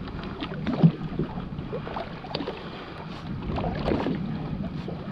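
Water sloshing against the hull of a small boat, with wind on the microphone and scattered light knocks, one sharper knock about a second in.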